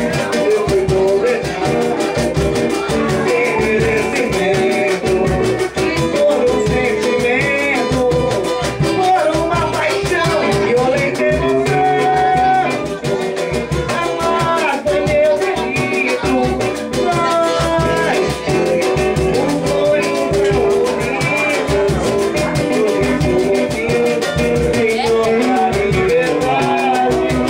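Live samba music played on acoustic guitar, with a steady, fast percussive beat.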